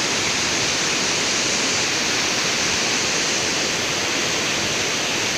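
Waterfall: water falling and splashing in a steady rush.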